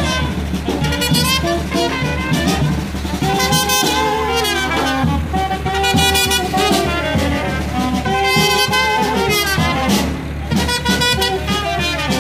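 Brass band music: horns playing a melody in phrases over a steady bass line.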